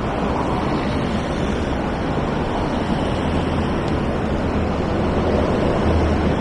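Steady roar of road traffic on a wide multi-lane city street, with a low rumble and some wind on the microphone. A coach bus passes, and the noise grows a little louder near the end.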